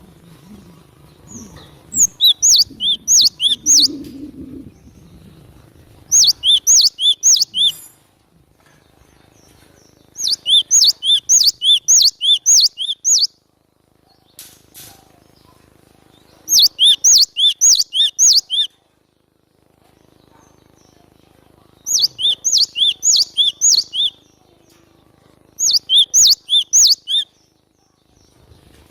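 Cinereous tit (glatik batu) singing in six bursts of rapid two-note phrases, each high note followed by a lower one. Each burst lasts a couple of seconds, with short pauses between.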